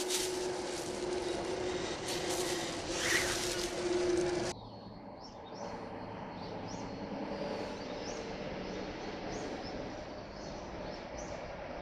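Outdoor background noise with a steady hum that stops abruptly about four and a half seconds in. After that, a quieter background with small birds giving short high chirps over and over.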